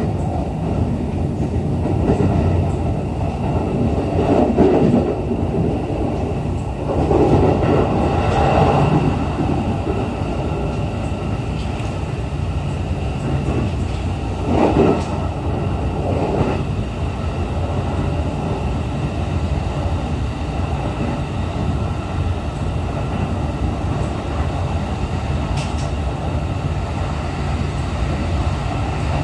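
Running noise heard inside a JR East E531 series electric train car: a steady rumble of wheels on rail, with a few louder swells in the first half.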